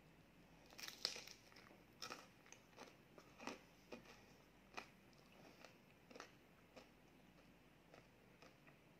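Biting and chewing a chocolate-coated ice cream cone: a string of crisp crunches, each a sharp crack, loudest in the first few seconds and growing fainter and sparser toward the end.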